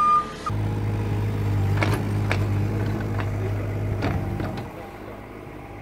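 A vehicle's reversing beeper sounds and cuts off about half a second in. Then an engine runs steadily with a low hum, with several sharp knocks, and the sound drops in level near the end.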